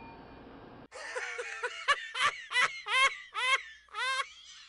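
High-pitched giggling laughter, in a run of about six short bursts starting about a second in.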